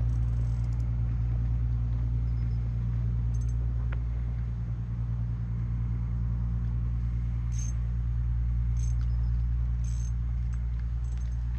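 Steady low drone of a running motor, unchanging throughout, with a few faint short high ticks in the second half.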